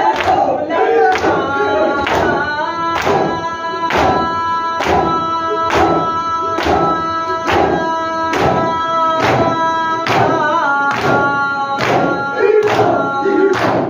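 Group matam: many hands beating on chests in unison, about two strokes a second, under a noha sung by a voice holding one long note that wavers briefly near the end.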